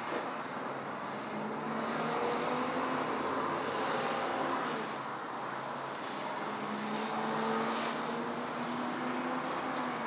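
Steady city road traffic noise, with the hum of passing vehicles swelling and fading. A couple of faint high bird chirps come about six seconds in.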